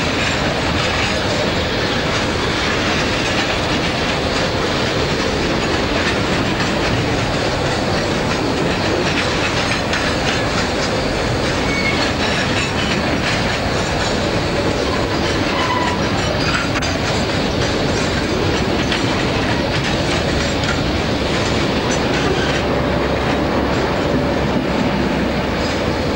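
Freight train of CXD coal wagons rolling slowly past at close range, the wheels clicking over the rail joints, with a few brief wheel squeals. Cicadas shrill steadily in the background.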